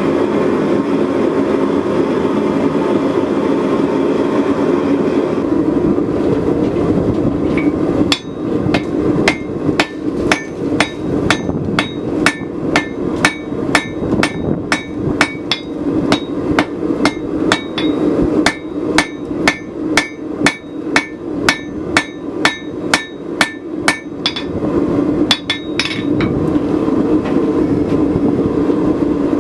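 Hand hammer blows on a hot wrought-iron and high-carbon steel billet on the anvil, setting the forge welds of a San Mai laminate. The blows come in a steady run of about two a second with a ringing strike, then stop near the end. A steady forge noise is heard before and after the hammering.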